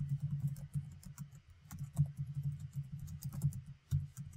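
Typing on a computer keyboard: a quick, irregular run of key clicks.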